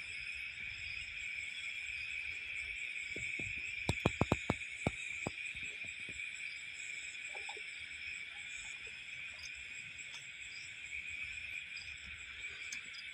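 Crickets chirring steadily. About four seconds in, a quick run of about six sharp clicks or knocks is louder than the chirring.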